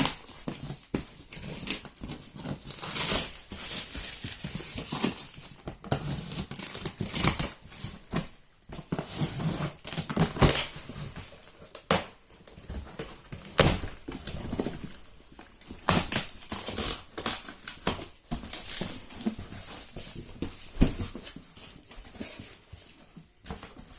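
Shipping parcel being unpacked by hand: packing material crinkling and tearing, with irregular scrapes and knocks as it is handled.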